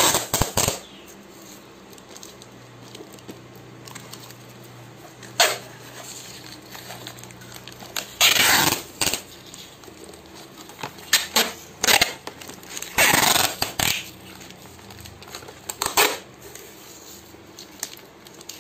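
Brown packing tape pulled off the roll in several noisy pulls, the longest about a second each, with short sharp clicks and taps in between as the tape is handled and pressed onto a PVC panel packet.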